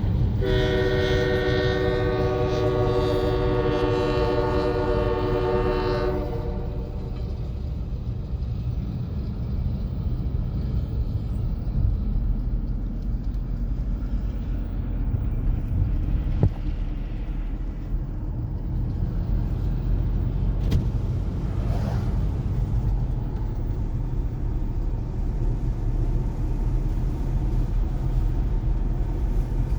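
Diesel locomotive horn sounding one long chord for about six seconds, then the steady low rumble of the train rolling over the crossing.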